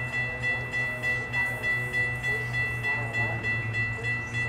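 Railroad grade-crossing warning bell ringing in a steady, even rhythm of about two to three strikes a second as a train approaches, over a low steady rumble from the train.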